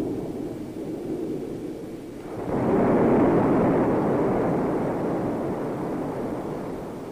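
X-15 rocket plane's engine firing: a loud, steady rushing noise that swells suddenly about two and a half seconds in, then slowly fades.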